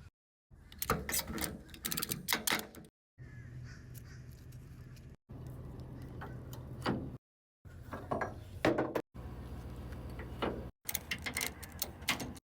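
Short cut-together clips of a small utility vehicle's engine running steadily, with sharp metallic clanks and rattles over it.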